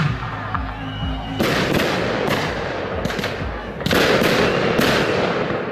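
Fireworks display: starting about a second and a half in, shells burst in a quick run of sharp bangs, about seven, with crackle between them.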